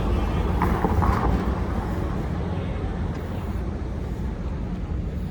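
Street traffic: a motor vehicle's low engine and tyre rumble that slowly fades. A few faint voices are heard about a second in.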